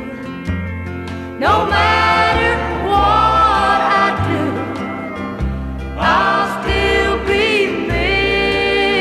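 Music: a slow country song with singing over steady accompaniment, a new sung phrase coming in about a second and a half in and another about six seconds in.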